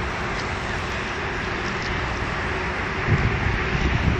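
Wind buffeting the microphone over a steady rumble of traffic, with stronger gusts of low rumble near the end.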